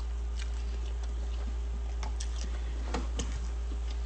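Steady low hum with a few faint short clicks and smacks, most of them around two to three seconds in: mouth sounds of someone eating.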